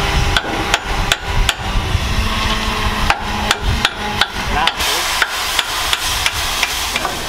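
Sharp metallic clanks and knocks of railway coupling gear being handled by hand between a steam locomotive's tender and a carriage, in irregular runs: a few in the first second and a half, then a quicker series from about three seconds in.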